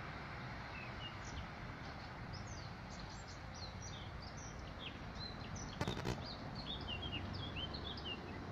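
Small birds chirping and singing in quick short notes over steady low outdoor background noise, with a brief burst of clicks about six seconds in.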